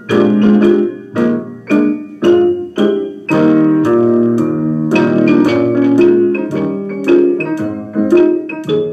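Piano music for a dance routine: short, evenly spaced chords on a regular beat, with a longer held passage a few seconds in before the short chords return.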